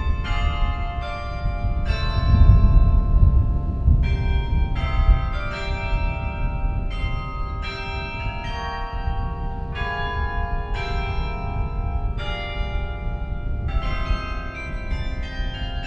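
Carillon bells playing a slow melody, notes struck one or a few at a time about once or twice a second, each ringing on under the next, over a low rumble that is strongest about two to four seconds in.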